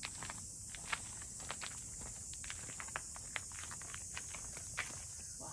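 Footsteps of a person and a leashed dog walking on a paved path: light, irregular ticks and scuffs, a few every second, over a steady high hiss.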